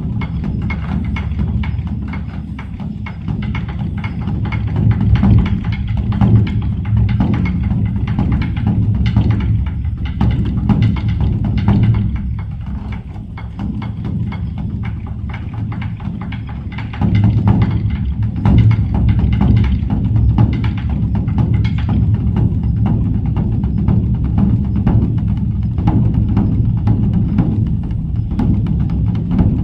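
Background music with a steady drum and percussion beat, getting fuller and louder about halfway through.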